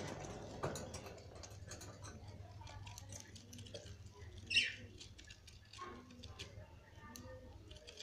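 Budgies nibbling and rustling through fresh seeding grass on the cage floor: many small crackles and clicks, with one sharp, loud budgie chirp falling in pitch about halfway through.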